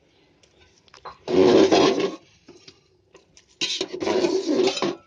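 A metal ladle scrapes and stirs thick khichuri in an aluminium pot, two long scraping strokes with a pause between them.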